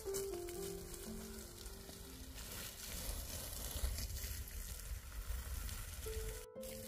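Food sizzling as it fries in a hot pan, a steady crackling hiss, under soft background music with a few held notes. The sound breaks off abruptly at a cut just before the end.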